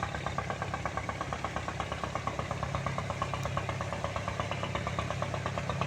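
Boat engine running steadily with a rapid, even chugging.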